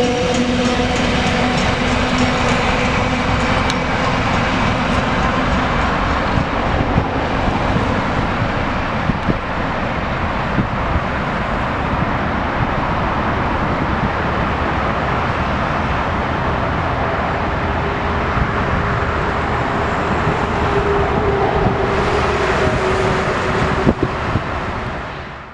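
A train running on the line: a steady rumble and hiss of wheels on rails, with a low droning tone in the first several seconds. The sound cuts off abruptly at the end.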